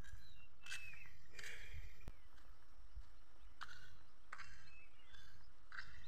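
Footsteps on a dirt path, a step about every second, over a steady low rumble.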